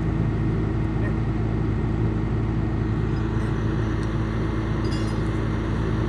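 Engine of a horizontal directional drilling rig running steadily at a constant speed, with an even hum.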